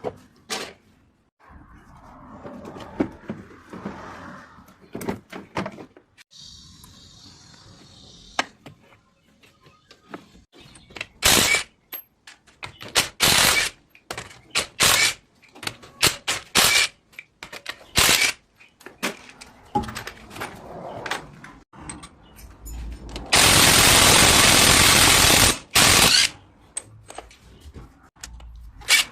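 Car repair work with hand and air tools: a run of sharp metal knocks and clanks, then a loud, steady rushing noise lasting about three seconds near the end.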